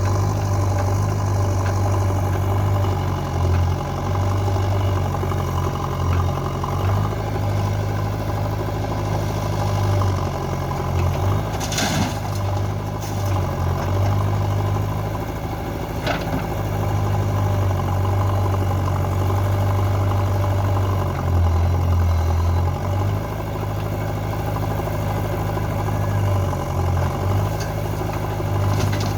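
A diesel engine of a backhoe loader or tractor idling steadily, with a low, even hum. Two short sharp clicks come about twelve and sixteen seconds in.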